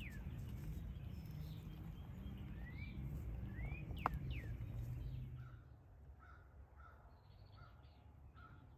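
Birds calling: short whistled notes that sweep up and down, over a low steady rumble, with a sharp click a little after four seconds. About five and a half seconds in the rumble drops away, leaving a string of short, evenly repeated calls.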